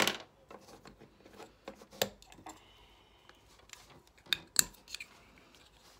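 Small Playmobil plastic parts clicking and tapping as they are handled and pressed together on a tabletop. The sharpest clicks come at the very start, about two seconds in, and twice in quick succession around four and a half seconds.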